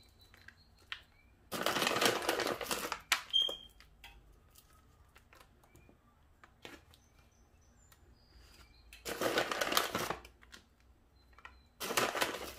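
Plastic bag of sliced almonds crinkling in three bursts as handfuls are taken out, the first near the start and two near the end, with faint ticks of almond slices dropping between.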